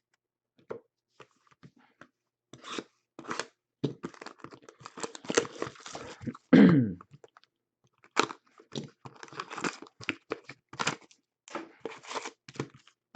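Hockey card packs and cards being handled: wrappers crinkling and tearing, and cards sliding and tapping, in irregular short bursts. A louder, brief low sound comes about six and a half seconds in.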